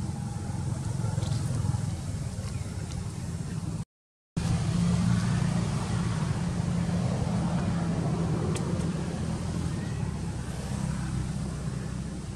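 Steady low outdoor rumble with an even hiss above it, broken by a half-second dropout to silence about four seconds in.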